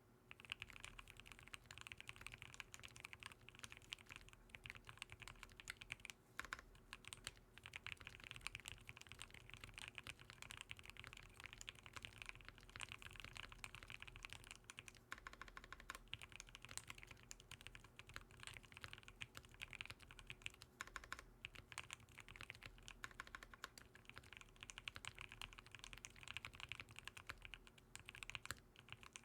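Custom mechanical keyboard, a Voice65 with Banana Split linear switches and lubed C3 stabilizers, being typed on fast and continuously: a dense, unbroken stream of keystroke clacks, a typing sound test.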